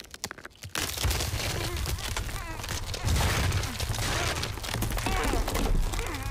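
Animated action sound effects: a few sharp clicks, then from about a second in a loud, crackling rumble with a deep low end, with short wavering cries over it.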